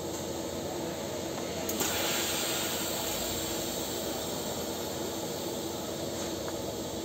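A TIG welding arc strikes on a steel pipe about two seconds in and then hisses steadily as the weld runs, over a steady background hum.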